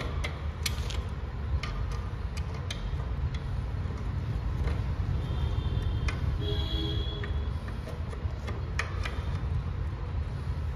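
Scattered light metallic clicks of a wrench turning the nuts onto the exhaust studs of a Yamaha RX100 while the silencer is fitted, over a steady low rumble.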